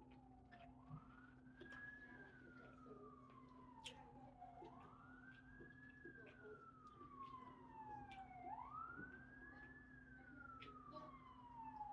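Faint emergency-vehicle siren wailing. Its pitch rises quickly and falls slowly, repeating about every four seconds, three times over, with a few light clicks alongside.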